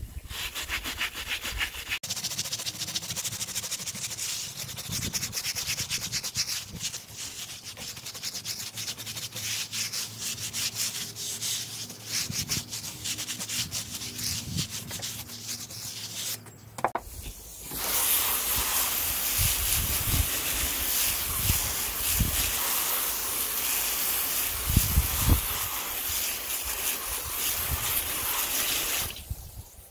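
Hand brush scrubbing a wet rubber tire sidewall with quick back-and-forth strokes. About two-thirds of the way in, a hose spray nozzle starts rinsing the tire and wheel with a steady spray of water, which cuts off suddenly near the end.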